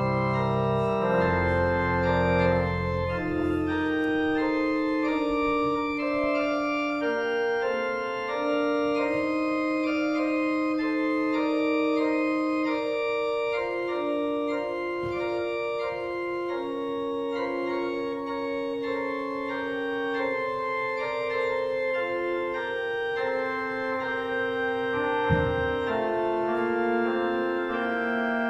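Organ playing slow, sustained chords, with deep bass notes under the first few seconds, then held chords in the middle and upper range. A brief click near the end.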